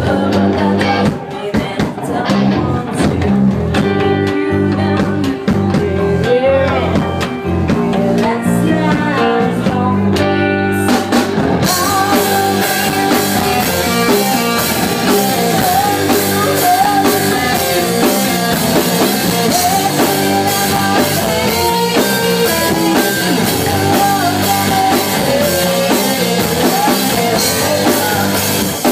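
Live rock band playing: a lead vocalist singing into a microphone over electric guitar, bass guitar and drum kit. About twelve seconds in the sound turns suddenly brighter and fuller.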